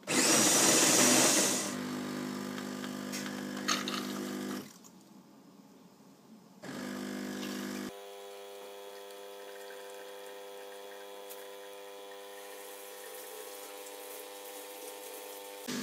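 Espresso machine's pump humming steadily as it pulls a double shot of coffee, with a loud hiss in the first second or two. The hum stops for about two seconds partway through and changes pitch about eight seconds in.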